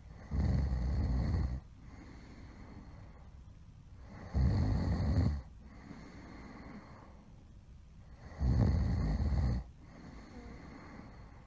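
A person snoring loudly: three long snores, each just over a second, about four seconds apart, with quieter breathing between them.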